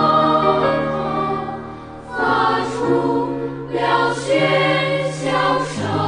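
Background music: a choir singing long held chords over a sustained bass note, dipping about two seconds in and then swelling again.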